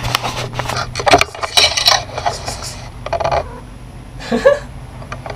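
Handling noise from a GoPro on a telescopic pole being moved around: a rapid, irregular series of sharp clicks, taps and scrapes of hard plastic and metal, over a steady low hum.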